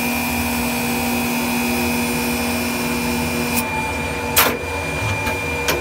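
Automatic metal-working machine running with a steady hum and high hiss; about three and a half seconds in the hiss drops away, followed by a sharp clack and a couple of lighter clicks as its mechanism moves the steel strips.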